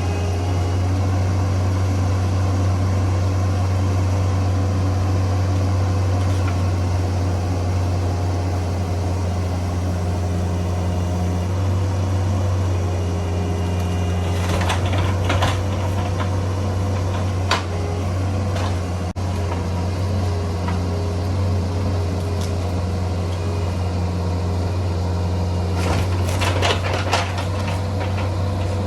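Bobcat 341D mini excavator's diesel engine running with a steady low drone under hydraulic work. Several short sharp knocks and cracks come about halfway through and again in a cluster near the end.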